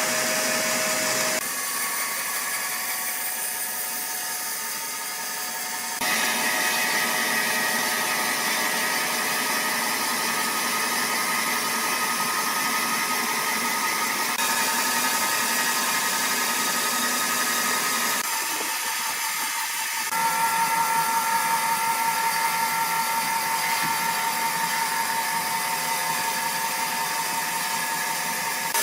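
Sawmill machinery running: a steady hiss with thin high whining tones, changing abruptly several times.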